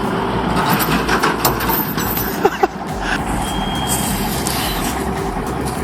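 Heavy M923 military truck's diesel engine running steadily under load, with a few sharp snaps and a brief high beep in the middle.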